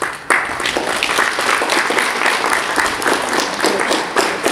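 A group of people applauding, starting abruptly a moment in and keeping up steady clapping, in welcome of a guest.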